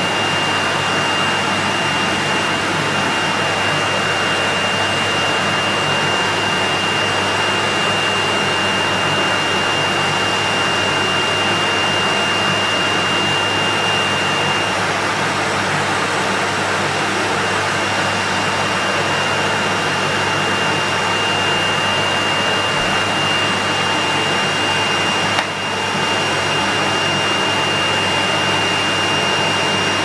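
Henry vacuum cleaner motor running steadily with its hose off, pulling air through the open inlet. It makes a steady rush of air with a thin high whine. There is one brief click and a short dip in level about 25 seconds in.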